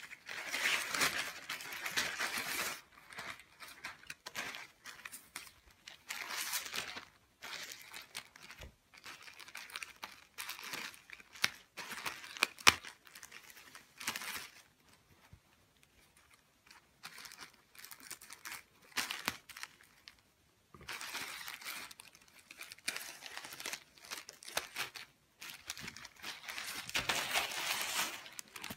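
Plastic packaging crinkling and rustling in irregular bursts as a plastic mailer and a clear poly bag are handled and torn open, with a sharp click about halfway through.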